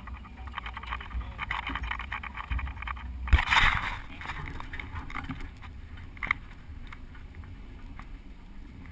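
Open Toyota Land Cruiser driving slowly over rough off-road ground, its body and fittings rattling and clattering over a low steady rumble. A loud knock from a jolt comes a little over three seconds in, and a single sharp click comes around six seconds.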